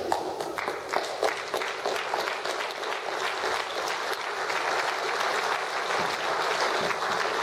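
Audience applauding with many closely packed claps, growing slightly louder over the first few seconds and then holding steady.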